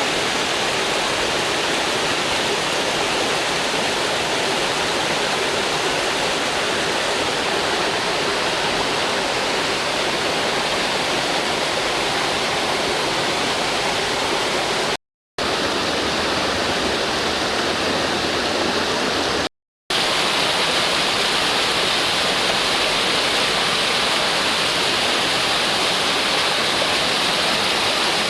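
Steady rushing of a waterfall's falling water. It cuts out briefly twice, about halfway through and again a few seconds later.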